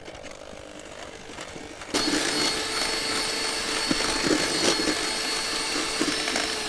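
Electric hand mixer beating eggs and sugar at high speed in a stainless steel bowl, a steady motor whine with the whisks churning. It is quieter for the first two seconds, then runs much louder. Near the end its pitch begins to fall as it winds down.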